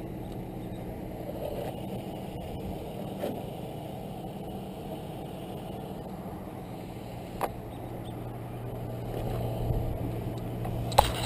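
Mini bike's 212cc Predator single-cylinder engines running slowly and idling as the bikes creep along and pull up. A steady engine hum that grows a little louder near the end, with a few sharp knocks.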